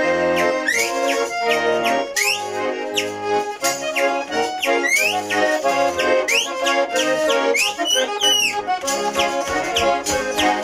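Russian garmon (button accordion) playing a brisk folk tune in chords, with whistled upward slides above it and wooden spoons clicking in time.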